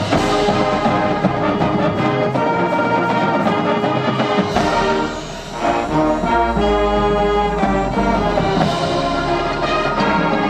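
A high school marching band playing: the full brass section holds loud chords over drums. About five seconds in the sound briefly drops, then comes back with heavy low bass drums, and a cymbal crash lands near the end.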